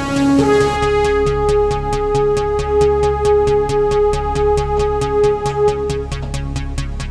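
Electronic background music with a steady, fast ticking beat over a low bass line and a held synth note that drops out near the end.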